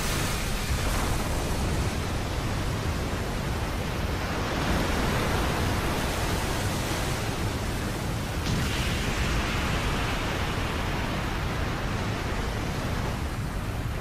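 Sound effect of a huge magical energy blast: a steady, even rushing noise with a deep rumble underneath.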